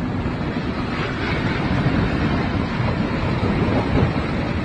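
Strong wind buffeting the microphone over the steady rush of heavy storm surf.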